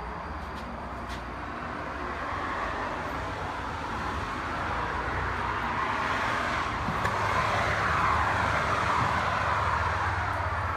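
A road vehicle passing by: tyre and engine noise swells to its loudest about three quarters of the way through, dropping slightly in pitch as it goes by, over a steady low hum.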